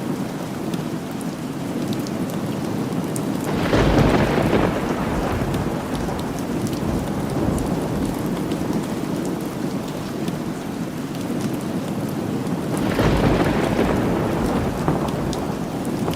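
Steady rain falling, with two rolls of thunder: a low rumble that swells up about four seconds in and fades over a couple of seconds, then another about nine seconds later.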